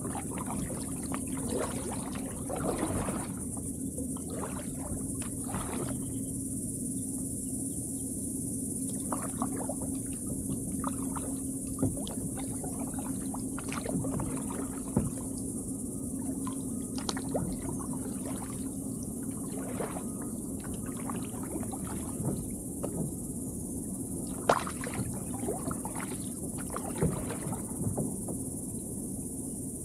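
Kayak paddle strokes: soft splashes, drips and small knocks at irregular intervals, over a steady high drone of insects and a faint steady low hum.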